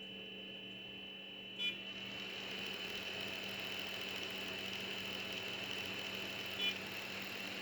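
Blower fan running with a steady hum and airy rush. Two short electronic beeps sound, about one and a half seconds in and again near the end, and after the first one the fan's rush gets louder.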